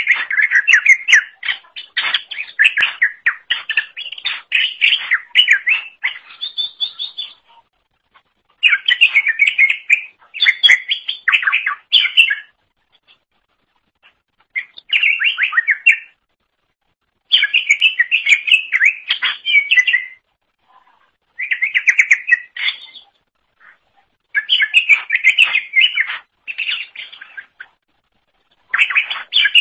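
Cucak ijo (green leafbird) singing in rapid, twittering phrases of one to four seconds, broken by short pauses.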